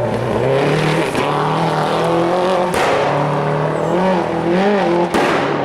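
Turbocharged rally car engine revving hard as it passes, its note climbing and falling through the gears, with two sharp bangs from its anti-lag system about three and five seconds in.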